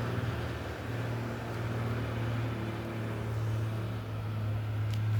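A steady low drone holding one pitch, with fainter overtones, from an unidentified source: the strange noise outside that had been compared to a lion or a hyena.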